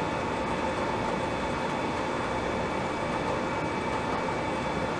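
Steady jet engine drone: an even rushing noise with a constant whine held at one pitch.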